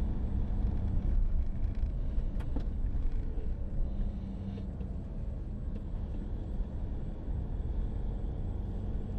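Motorhome engine and road noise heard from the cab as it drives slowly, a steady low rumble.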